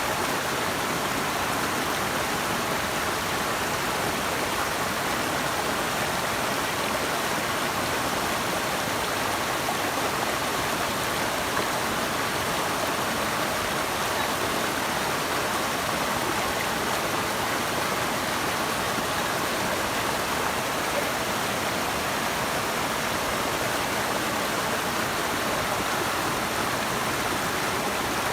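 Steady, unbroken rush of flowing water from a river or waterfall, even in level throughout.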